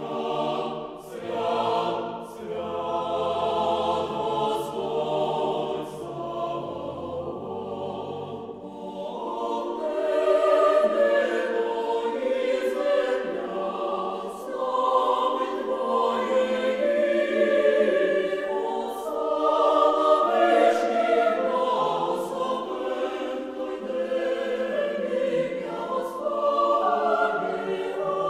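Mixed choir singing a sacred choral piece a cappella, entering together from silence. The basses hold a low sustained note under the upper voices for the first eight seconds or so, then all parts move on together.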